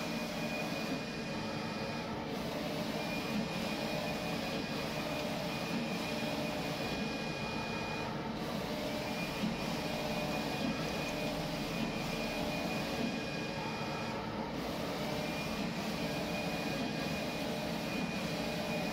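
Roland LEC-330 UV printer/cutter running a print: steady machine noise from the printer, with a high whine that breaks off briefly about every six seconds.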